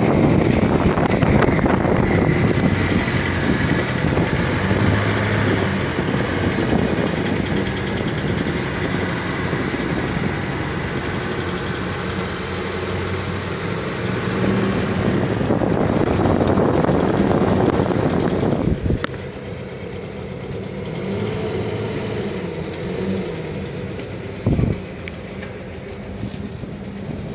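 Audi Q7 engine running, louder for the first part and dropping suddenly to a quieter, steady run about 19 seconds in. A short, loud knock comes about 24 seconds in.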